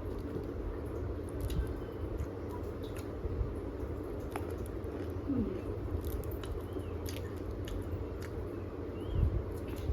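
A person chewing and biting sel roti, a fried Nepali rice-flour ring bread, with achar, close to the microphone: soft squishy chewing with small scattered clicks over a steady low hum.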